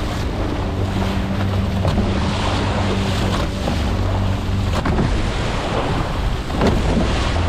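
A boat's engine running at a steady hum, under wind buffeting the microphone and the wash of rough water.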